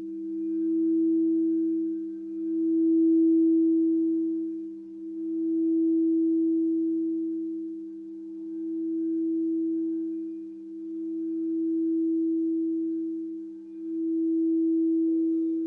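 Crystal singing bowls ringing together in a steady sustained tone that swells and fades about every two and a half seconds. A new, slightly higher tone joins near the end.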